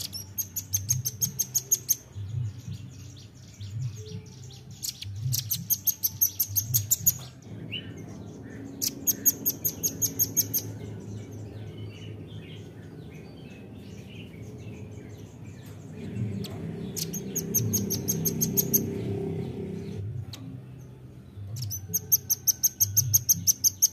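Velvet-fronted nuthatch calling in repeated bursts of rapid, high-pitched trilling notes, each burst lasting about one and a half seconds, five times with pauses between.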